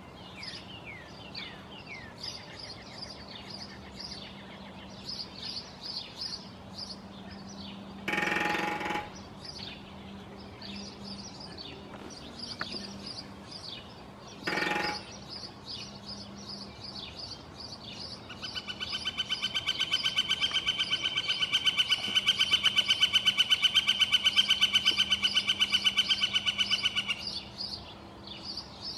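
Northern flicker drumming on a metal chimney cap, making two short ringing drum rolls: one about eight seconds in and a briefer one some six seconds later. Then it gives its long call, a fast run of loud repeated wick notes lasting about nine seconds. Smaller birds chirp throughout.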